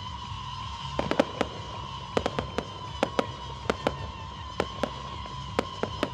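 Aerial fireworks crackling: a scatter of sharp pops, two or three a second, starting about a second in, over a steady high tone.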